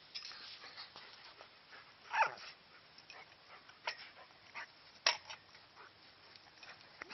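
A puppy and a grown Ridgeback play-fighting: scuffling with scattered sharp knocks, the loudest about five seconds in, and one short dog whine falling in pitch about two seconds in.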